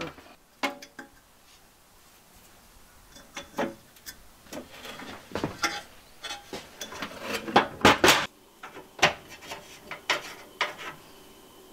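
Sheet-metal parts of a gas stove clattering and knocking as the cooktop is lowered back into place and the stove is handled, in scattered knocks with a louder cluster about eight seconds in.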